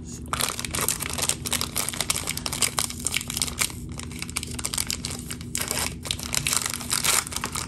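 A 2022 Score football trading-card pack wrapper being torn open at its crimped end and crinkled by hands as it is pulled apart: dense, irregular crackling and tearing.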